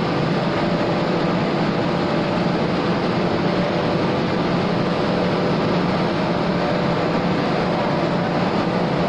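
Two-colour plastic roll printing machine running steadily, a dense even mechanical noise with a few faint steady tones through it.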